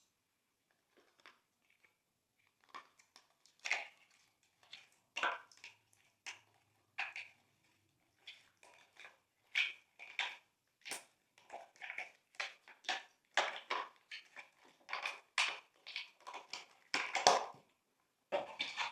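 Glossy slime being squished and mixed, giving irregular short wet crackles and squelches that come thicker and louder toward the end.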